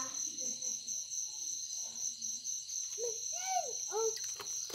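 Insects chirring steadily in a high, even trill, with a person's voice speaking briefly about three seconds in.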